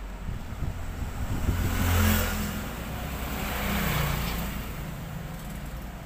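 A motor vehicle passing by, its noise swelling to a peak about two seconds in, easing, then rising again about four seconds in before fading.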